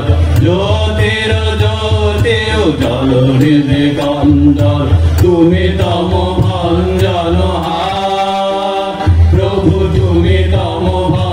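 A group of men singing a Bengali arati bhajan together in unison, in long, slowly gliding held notes, with a steady low accompaniment beneath.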